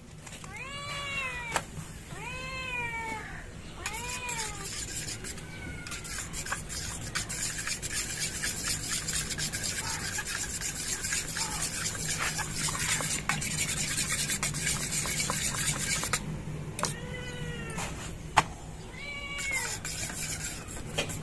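A cat meowing: a few rising-and-falling calls in the first five seconds and a few more near the end. In between, a spoon beating eggs in a small steel bowl makes a fast, scratchy clinking.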